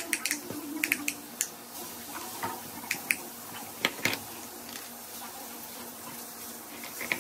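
Scattered light clicks and taps from a pen, a metal ruler and a tape measure being handled on a hard tabletop while a fabric strip is measured and marked.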